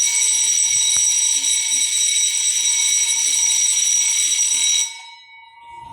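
Ship's fire alarm sounding with a loud, steady, high-pitched tone, set off by a lighter test of a detector. It cuts off sharply near the end as it is silenced.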